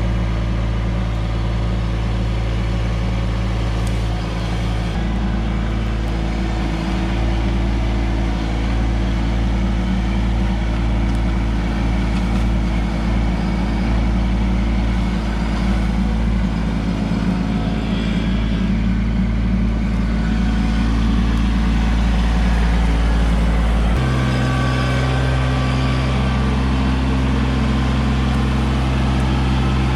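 Kubota LX2610 compact tractor's diesel engine running steadily, its pitch shifting about five seconds in and again near the end as the engine speed changes.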